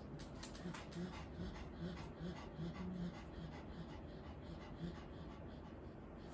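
An ailing old dog's short, low wheezy grunts, about two or three a second for some four seconds, with faint clicking mouth sounds.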